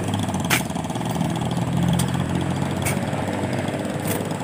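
An engine idling steadily, with two sharp clacks of steel shovels striking sand and metal, about half a second in and about three seconds in.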